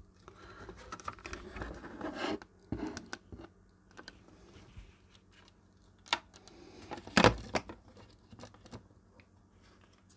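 Handling noise from a Sinclair ZX81's circuit board being pressed and shifted into its plastic case: scraping and rustling, several small clicks, and one louder knock about seven seconds in.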